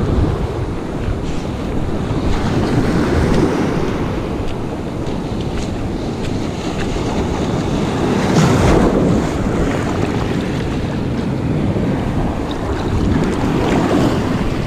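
Ocean surf breaking and washing up the beach, with wind buffeting the microphone. The wash surges louder about three times, a few seconds apart.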